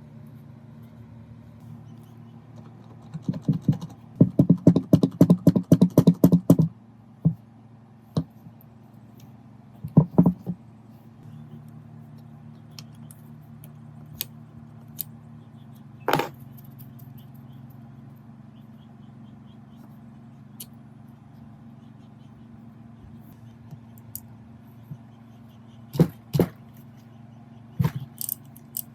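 Metal parts and hand tools clinking and knocking as a rusty gearbox is worked on, over a steady low hum. About three seconds in, a loud run of rapid clicking lasts about three seconds, then single clinks and knocks come every few seconds.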